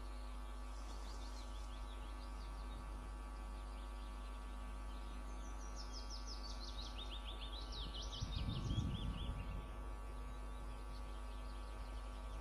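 A small songbird sings in the background: a faint burst of rapid notes falling in pitch near the start, then a longer, louder run of them about halfway through. Underneath is a steady electrical hum, and a brief low rumble comes about two-thirds in.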